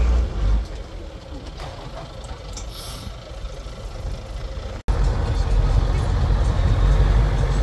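Heavy trial truck engine under load, dropping off about half a second in to a quieter low running sound with spectators' voices. Just before the end's last three seconds it cuts abruptly to a Mercedes-Benz 8x8 trial truck's engine rumbling loud and steady.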